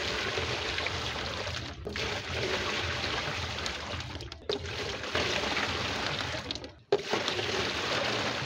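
Water being poured into a fish tank from another tank in a run of pours, each splashing steadily for about two seconds, with brief breaks between them.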